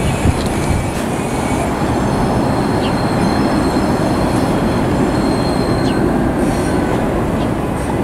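Vintage IRT Lo-V subway train running over elevated steel track on a curve, a steady loud rumble of wheels on rails. A faint high wheel squeal comes in around the middle as the cars grind through the curve.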